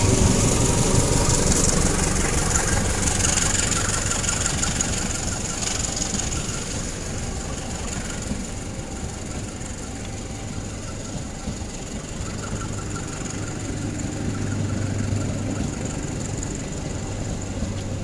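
CC 201 diesel-electric locomotive passing close with its engine running, then its passenger coaches rolling by on the rails with a steady low hum. The sound is loudest at the start and grows fainter over the first ten seconds as the locomotive moves away.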